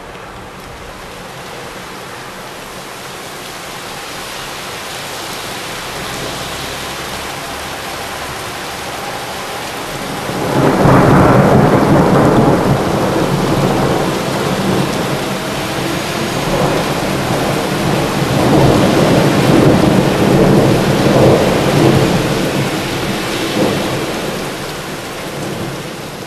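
Steady rain that slowly grows louder, then about ten seconds in a long, loud peal of thunder breaks out over it, swelling and fading in waves before easing off near the end.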